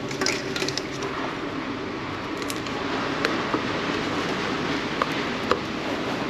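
Plastic lid being fitted and pressed onto a paper takeaway coffee cup: a few light clicks and snaps, over a steady hum of café machinery.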